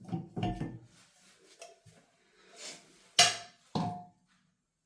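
Handling noise, then two sharp clinks about half a second apart, each with a short ring: metal parts or tools knocking together while a shower valve is being taken apart.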